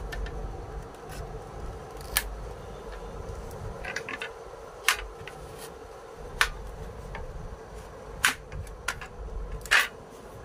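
A handful of sharp clicks or taps, one every second or two, over a steady low background hum.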